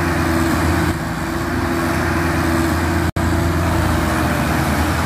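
Diesel engines of Mahindra tractors running hard under heavy load, dragging a trolley loaded with poplar logs out of mud. A steady low engine drone that cuts out for an instant a little after three seconds in.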